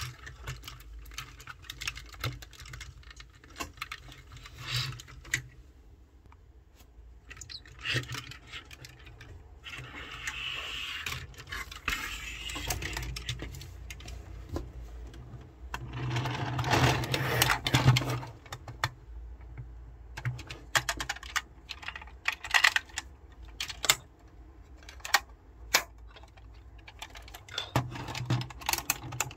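Hard plastic clicks, snaps and rattles of Tobot transforming robot-car toys being handled and folded, their hinged parts clicking into place at irregular moments. About sixteen seconds in there is a denser two-second stretch of rattling and scraping.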